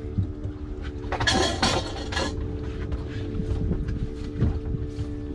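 Boat engine running with a steady hum under a low rumble, with scattered knocks and clinks of gear being handled and a loud rushing burst about a second in.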